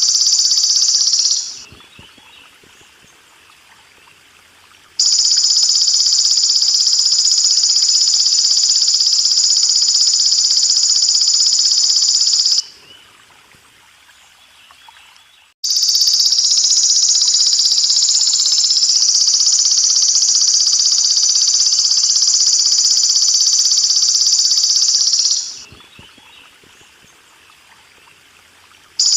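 Belalang emas insect calling in a high, steady buzzing trill. It comes in long stretches of about eight and ten seconds that start abruptly and die away, separated by pauses of a few seconds. Water trickles quietly underneath throughout.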